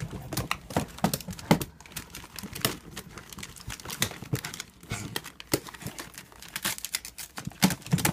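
Plastic bag rustling and crinkling in quick, irregular crackles as a small dog burrows and climbs about inside it among rolls of wrapping paper.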